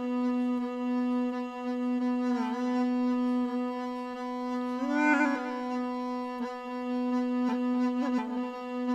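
Gourd reed pipe in the snake-charmer's been style, playing one buzzy sustained note with brief ornamental turns a few times. A few light hand strokes on a barrel drum come in near the end.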